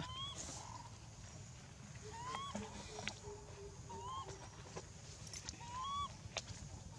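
Baby macaque giving four short squealing coo calls about two seconds apart, each rising in pitch and then levelling off: the cries of an infant held back by its tail.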